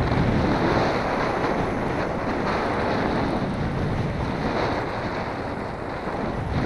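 Strong wind buffeting the microphone: a loud, steady rushing noise with gusts.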